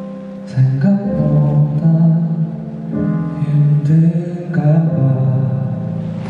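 Live music from a slow ballad, with sustained chords that change every second or two.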